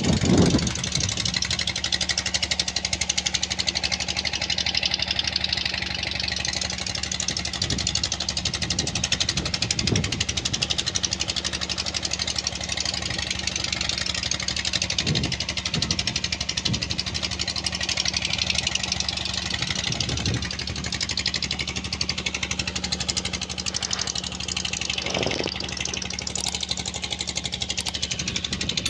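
An engine running steadily with a fast, even pulse and some hiss, and a few dull thumps along the way.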